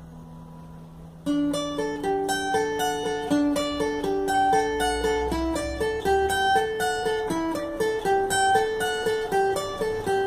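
Acoustic guitar fingerpicked: one note rings and fades, then about a second in a steady run of single picked notes starts, an arpeggio pattern that repeats.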